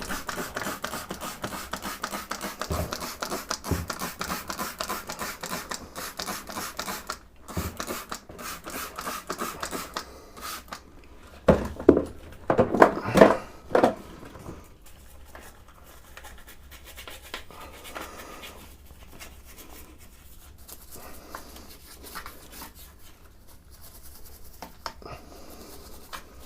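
Rapid scrubbing and scraping strokes on the greasy mechanism of a vintage sewing machine, with a short cluster of louder knocks about halfway through, then quieter, sparser rubbing.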